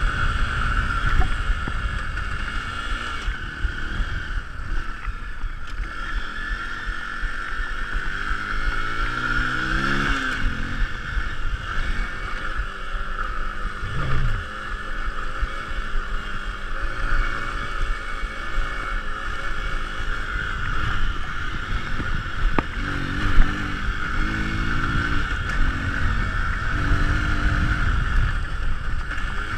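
Hero Impulse trail motorcycle's single-cylinder engine pulling along a dirt track, rising in pitch as the throttle is opened about a third of the way in and again near the end. Steady wind rumble on the action-camera microphone and a constant hiss run under it.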